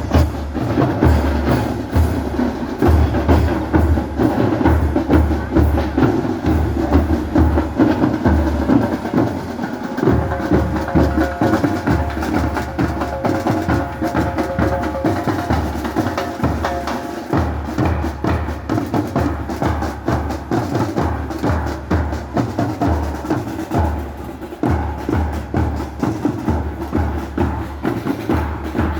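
Parade marching-band percussion: bass drums pounding a steady beat under rattling snare and woodblock-like strikes. A pitched melody plays over the drums for several seconds about a third of the way in.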